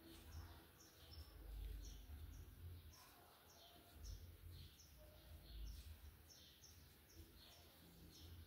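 Near silence, with a bird's faint high chirps repeating evenly about two to three times a second over a low rumble.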